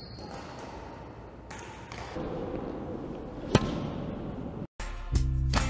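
A single sharp crack of a badminton racket striking a shuttlecock about three and a half seconds in, over the hum of a large gym. Guitar music starts near the end.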